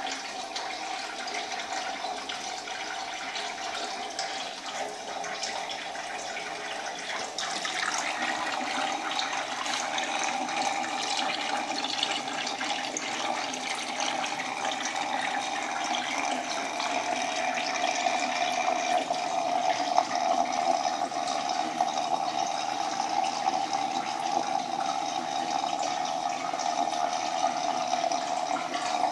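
Steady running and trickling water circulating through a small aquaponics system, with pumped water splashing through the tank and clay-pebble grow bed. It gets louder about seven and a half seconds in.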